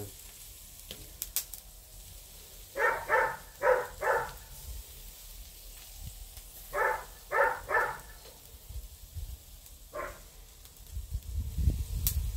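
A dog barking in short runs: four barks, then three, then a single bark. Underneath is a faint sizzle of pork souvlaki skewers on a charcoal grill, with a few low knocks near the end.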